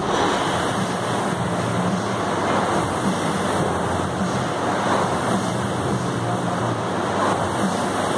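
Air rowing machine's fan flywheel spinning under steady rowing strokes, giving an even rush of air.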